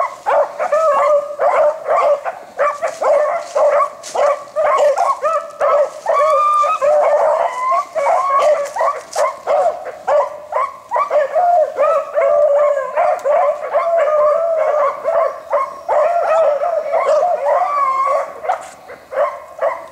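A pack of beagles baying with several voices overlapping and no break, the hounds giving tongue while trailing a rabbit's scent.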